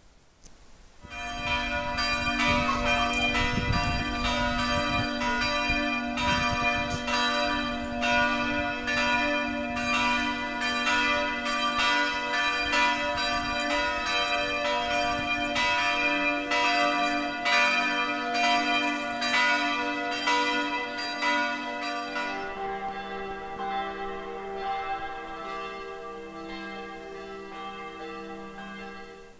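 Church bells ringing in a steady peal, about two strikes a second. A little past twenty seconds in the pattern changes to a different set of bells, quieter and fading.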